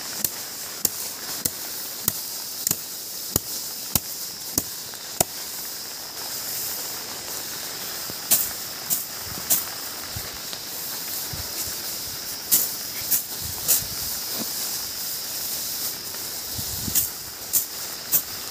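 Heavy rain falling as a steady hiss, with sharp taps of drops landing close by: about one every half second at first, then irregular and in small clusters.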